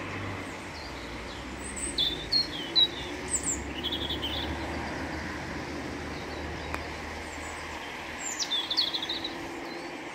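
Short, high phrases of songbird song, which the gardener takes for a European robin or a song thrush, repeated several times over a steady low rumble of road traffic.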